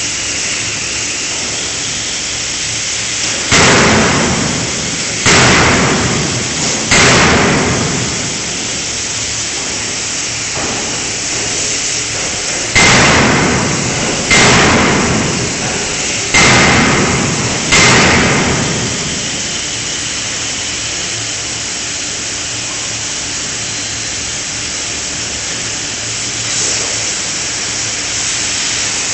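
5-ton fully hydraulic closed-die forging hammer striking blows on a forging: three heavy blows, then after a pause of about five seconds four more, each ringing out for about a second. A steady machinery noise runs underneath.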